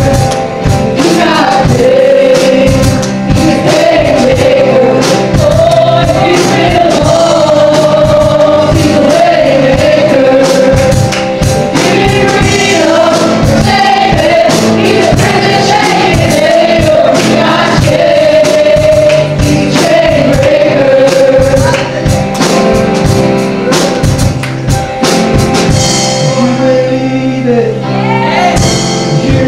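Live church worship band playing a gospel song: several voices sing into microphones over guitar and a steady beat. Near the end the beat drops out, leaving the voices and guitar.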